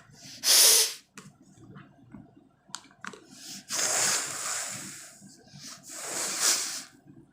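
A person blowing hard through the nose without a handkerchief: one short loud blast, then two longer blasts, each fading away.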